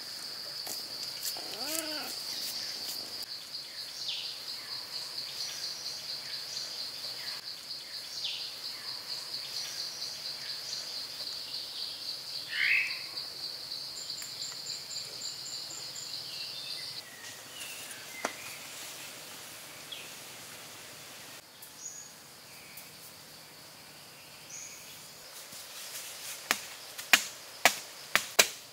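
Steady, rapidly pulsing insect buzz with a few scattered bird calls; the buzz stops about two-thirds of the way through. Near the end come about five sharp, loud strikes, under a second apart, as a wooden-handled digging tool is driven into packed dirt.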